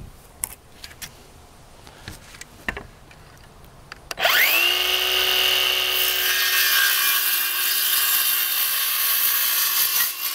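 A few light knocks and clicks as the board is set in place, then about four seconds in a handheld circular saw spins up with a rising whine and runs steadily, cutting across a 1x pallet board, winding down at the end.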